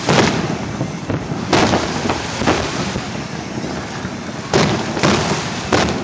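Aerial fireworks shells bursting: about six sharp booms at irregular spacing, over a steady background hiss.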